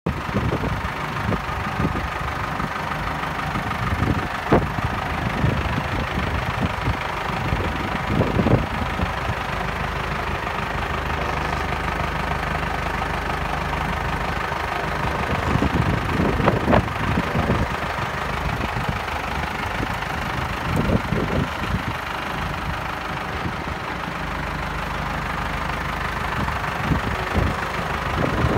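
Tractor engine idling steadily, with a few brief louder bumps now and then.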